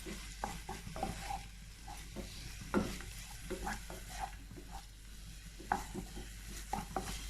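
Crushed green-chilli masala and onions frying in coconut oil in a pan, stirred continuously, with a steady sizzle and irregular scrapes and taps of the utensil against the pan. This is the sautéing stage, frying the masala until its raw smell is gone.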